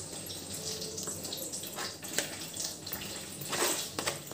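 Spatula pressing and scraping wet onion-tomato paste through a stainless steel mesh strainer: a run of soft, wet scraping strokes, a little louder about three and a half seconds in.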